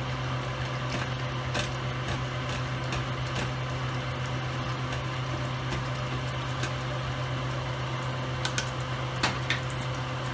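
Steady electrical hum of a running kitchen appliance, with a few faint clicks, two of them near the end.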